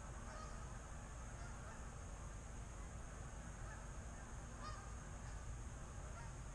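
A large flock of Canada geese flying over, many honks overlapping into a faint, continuous chorus.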